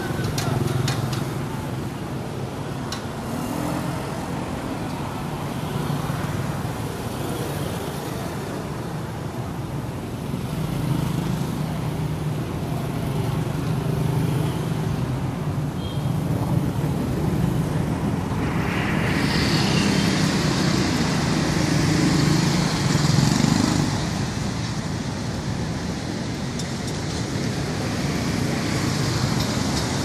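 Street traffic, mostly motorbikes and scooters riding past, their engines swelling and fading in a steady urban hum. About two-thirds of the way through, a high hiss joins the traffic and continues.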